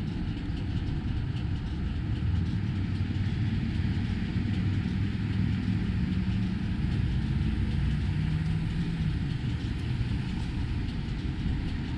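Gas pump dispensing fuel into a car's tank: a steady low rumble of the fuel flowing with no break.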